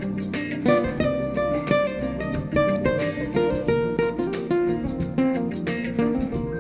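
Nylon-string acoustic-electric guitar played fingerstyle: a steady stream of plucked single notes, several a second, over lower bass notes.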